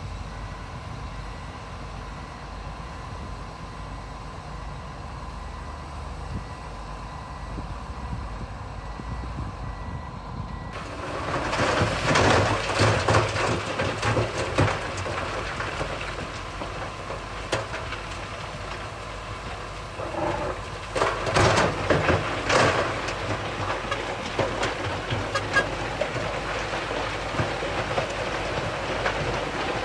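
Heavy earthmoving machine's diesel engine running steadily, then, about a third of the way in, loud clattering and crunching of stone with many sharp clicks and knocks, loudest in a few bursts near the middle.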